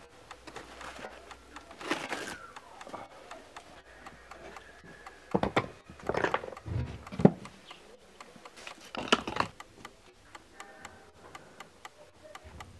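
Rough chunks of rock being handled: scattered knocks and scrapes, about half a dozen, with the loudest knock a little after seven seconds in.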